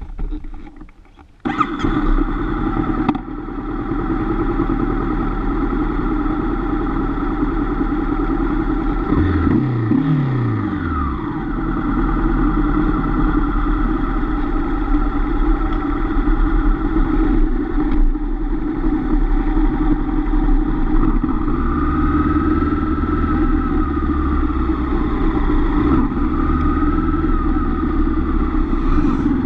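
Honda CB500F's parallel-twin engine starting up about a second and a half in, then running steadily as the motorcycle pulls away, with the revs rising and falling a few times around ten seconds in.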